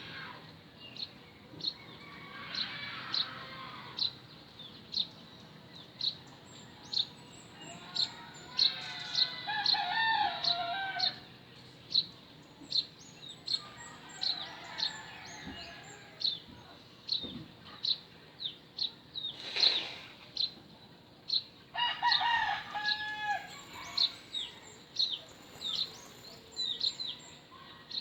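Roosters crowing four times, each crow lasting two to three seconds, over a small bird's short high chirps that repeat about twice a second. One sharp knock comes about two-thirds of the way through.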